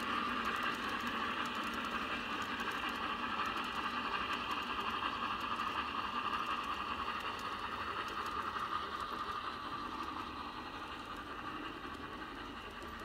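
Garden-railway model train hauled by Hf 110 C locomotive models, running along the track with a steady rattle of wheels and drive. It fades gradually as the train moves away.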